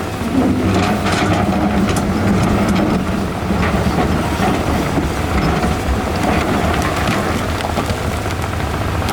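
Heavy hydraulic excavator's diesel engine running steadily under load, with scattered short knocks and clanks of the bucket and rocks.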